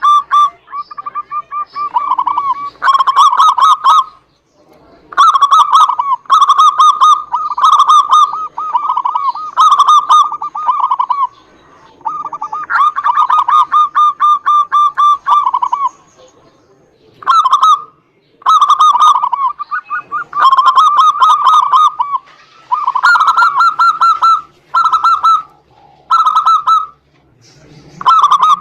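Zebra doves (perkutut) cooing, phrase after phrase of rapid trilled notes with short pauses between, more than one bird calling and answering.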